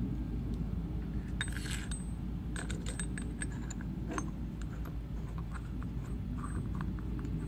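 Light metallic clicks and taps as a steel pin is threaded by hand into an injector cup installation tool, over a steady low hum.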